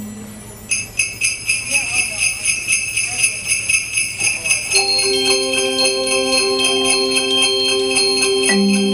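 Sleigh bells shaken in a steady beat, about three shakes a second, starting just under a second in. About five seconds in, mallet percussion joins with held pitched notes under the bells.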